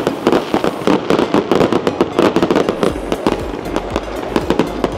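Strings of firecrackers going off in rapid, irregular cracks to greet a temple procession, thick at first and thinning out after about three seconds, when a low steady rumble comes in underneath.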